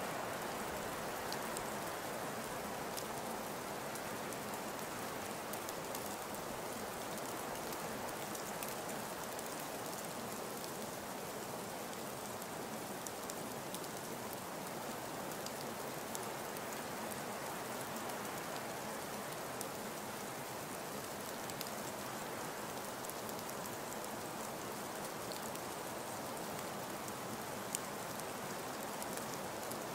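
Steady rain falling, an even hiss of noise with scattered faint drop ticks.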